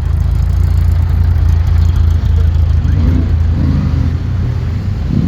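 Loud, steady low rumble of a motor vehicle engine in street traffic.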